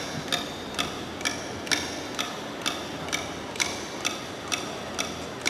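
Struck percussion keeping a steady beat for a traditional Mangyan dance: short, sharp ringing clicks, about two a second, evenly spaced.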